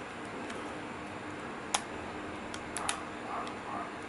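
Small sharp clicks of a compact camera's plastic cover being pried loose by hand: one click just under two seconds in, then two close together about a second later, over a faint steady room hum.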